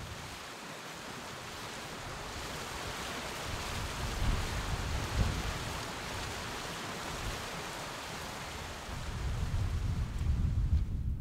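Wind outdoors: gusts buffeting the microphone at the start and again in the last couple of seconds, with a steady rushing hiss between.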